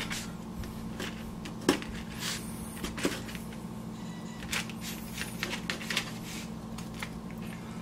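A steak knife sawing through a grilled pork steak on a paper plate, with a few light clicks and short scrapes of the knife and a plastic fork against the plate, over a steady low hum.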